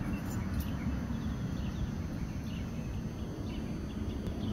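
Small birds chirping faintly here and there over a steady low rumble.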